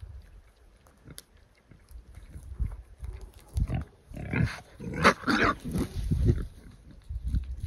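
Wild boars squealing and grunting in a short scuffle as one drives another away, with a run of harsh, loud squeals from about three and a half to six and a half seconds in.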